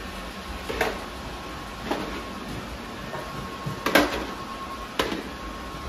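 Several robot vacuum cleaners running together with a steady whir, with four short knocks spread over a few seconds as the robots bump into things.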